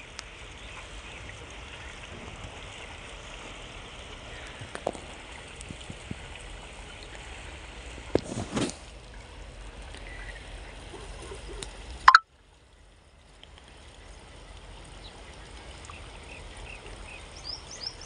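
Steady outdoor background noise with a few light knocks and a sharp click about twelve seconds in, after which the sound briefly drops out. Birds chirp near the end.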